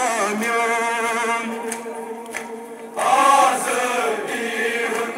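Kashmiri noha, a Shia Muharram mourning lament, sung by men's voices in wavering, held notes; it grows louder about three seconds in.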